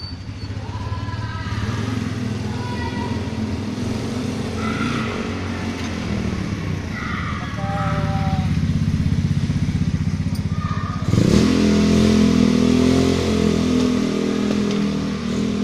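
A small engine running steadily, turning louder and fuller with a sudden step about eleven seconds in. A few short, high, steady tones sound over it in the first half.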